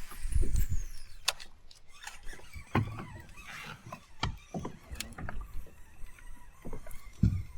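Gusts of wind buffeting the microphone, heard as uneven low rumbles, with scattered sharp clicks and light knocks in between.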